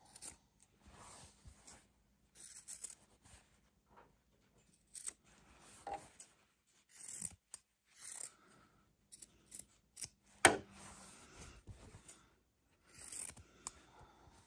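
Scissors snipping in a series of short, irregular cuts as excess threads and the seam corners of sewn fabric are trimmed, with light fabric rustling between cuts. One sharper, louder snip comes about two-thirds of the way through.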